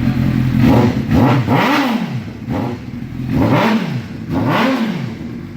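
Honda CBR600RR's inline-four engine running and being revved in several quick blips, each rising and falling in pitch. It runs properly on the newly wired harness, a sign that the wiring is right.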